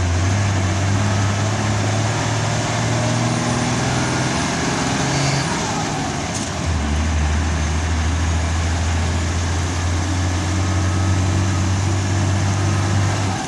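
Turbocharged diesel engine of a bus pulling under way, with a faint high turbo whistle. The engine note drops and breaks off about five to six seconds in, as at a gear change, then comes back strong near seven seconds.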